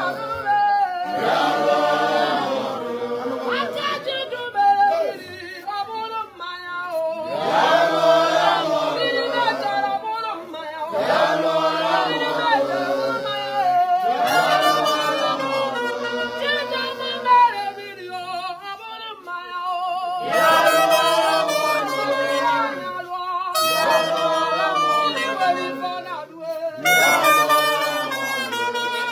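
A group of people singing together in short phrases, with brief pauses between them.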